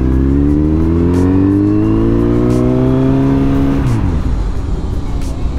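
Kawasaki Z900 inline-four engine revving up as the motorcycle accelerates, its pitch rising steadily for about four seconds, then the note drops away suddenly as the throttle closes, leaving a rushing noise.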